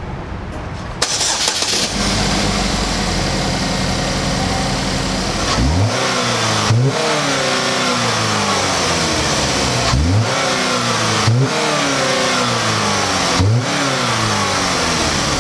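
2015 Chevy Equinox's four-cylinder engine comes to life about two seconds in and runs steadily, then is revved briefly five times, each rev rising and falling back to idle. It is an ugly sounding engine that the owner says wants to stall at idle, with its check engine light on.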